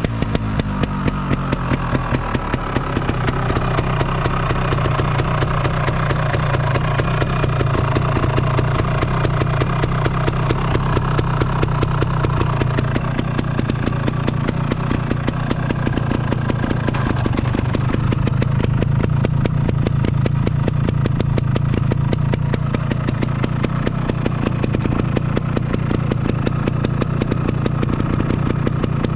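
Engine idling through a TOM'S aftermarket exhaust silencer. It settles back to idle in the first couple of seconds, then runs at a steady idle with no abnormal noises.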